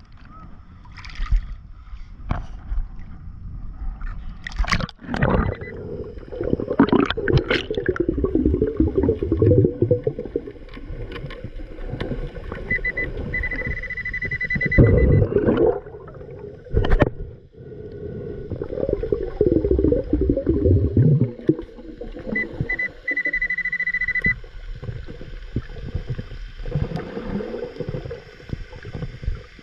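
Underwater, a diver breathing through a regulator, the exhaled air bubbling and gurgling in irregular surges. Twice a Pulse Dive underwater metal detector gives a high steady beep about two seconds long, starting with a few quick stutters: the signal that it has found a metal target in the sand.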